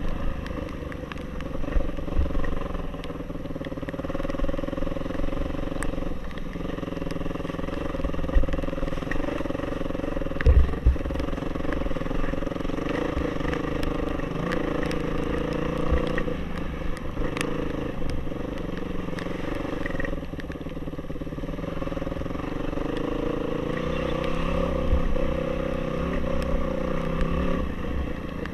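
Off-road motorcycle engine running steadily, its pitch drifting up and down with the throttle, with low thumps mixed in.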